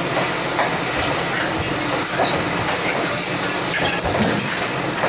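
Din of a busy fencing hall: a steady loud rush with a thin constant high whine, over which come scattered light clicks and short high scrapes from sabre blades and shoes on the strips.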